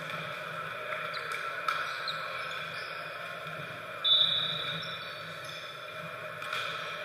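A volleyball referee's whistle gives one short, high blast about four seconds in, the signal for the serve, and it echoes and fades in a large gym. A few light knocks come before it, over a steady murmur of room noise.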